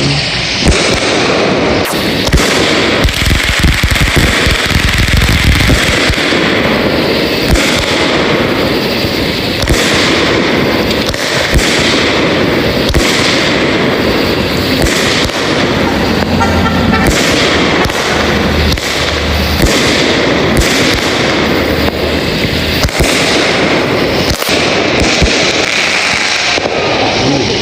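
Consumer fireworks firing continuously: a loud, dense barrage of repeated shots and bursts over a constant noisy background.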